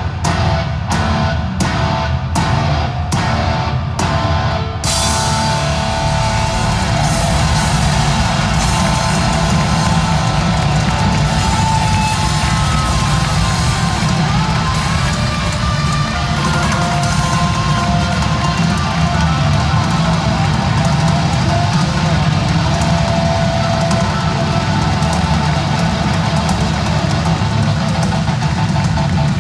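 Progressive metal band playing live in an arena. Drum hits land about twice a second for the first few seconds, then cymbals and the rest of the band fill in about five seconds in and keep going.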